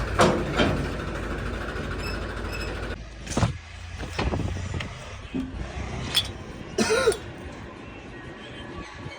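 Diesel engine of the machinery running low and steady, then dropping away about three seconds in. Scattered sharp knocks and clinks follow, with a short cough-like sound near the end.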